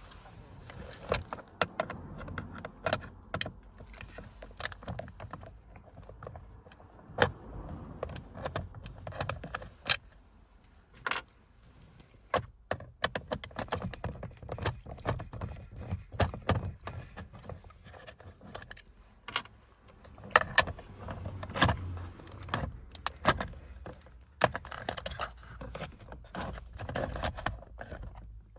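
Hand-work on a car's rev counter housing: a screwdriver and small parts click, knock and rattle as its three Phillips screws are backed out. Irregular sharp clicks through the whole stretch, with denser rattling bursts around the middle and again near the end.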